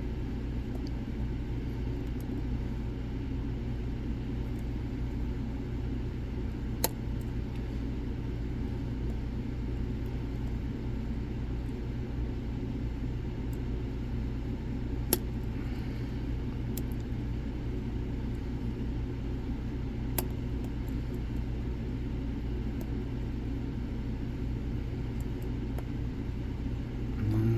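Lock pick working the serrated pins of a Gege pExtra lock cylinder: a few single sharp clicks over a steady low rumble.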